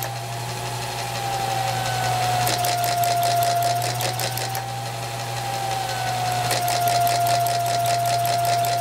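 Homemade camstopper hit-and-miss engine being turned over by a belt-driven motor, unlatched with its cam turning again at the lower speed. A steady whine that wavers slightly in pitch runs under a fast mechanical clicking from the cam gear, which comes and goes in spells.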